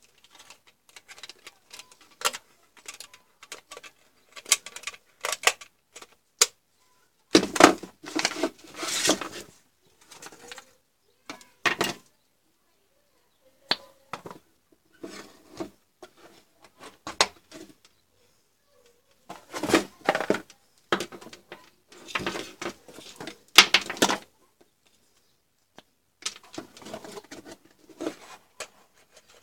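Close handling noise from a plastic digital multimeter and its test leads: irregular clicks and taps, with several longer stretches of rubbing and rustling.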